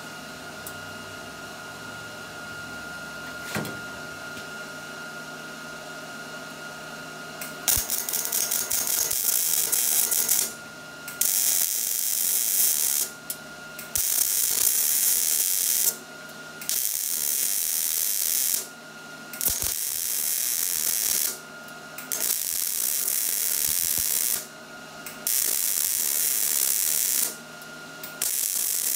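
Wire-feed welder arc crackling as a bracket is welded onto a steel exhaust muffler. It comes in about eight short runs of roughly two seconds each with brief pauses, starting about eight seconds in.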